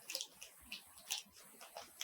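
Pokémon trading cards and their packaging being handled: several short, soft rustles and scrapes.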